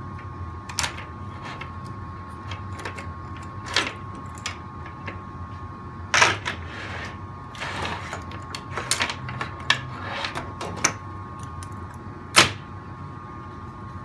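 Irregular plastic clicks and knocks as the tracks are pulled off the wheels of a Kyosho Blizzard RC snowcat, the sharpest knock about twelve seconds in. A faint steady hum runs underneath.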